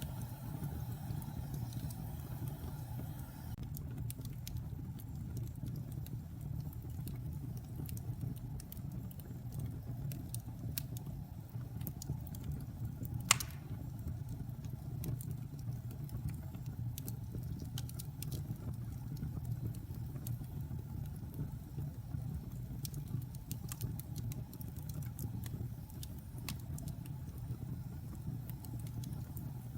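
Wood fire burning with a steady low rumble and scattered crackles, with one loud pop a little before halfway.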